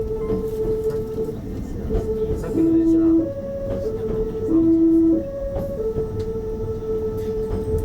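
Train running, with a string of steady, horn-like tones over the rumble. One note is held, then shorter notes step back and forth between three pitches for a few seconds before the held note returns.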